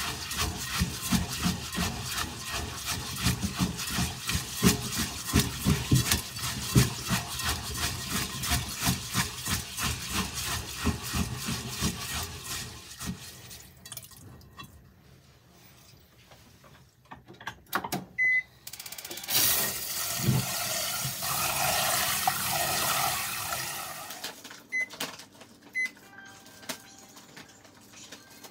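Rice being washed by hand in water in a rice cooker's metal inner pot: rapid rubbing and swishing of the grains for about the first 13 seconds. Later water runs for several seconds, and near the end the Zojirushi NP-ZT10KS rice cooker's control panel gives two short beeps.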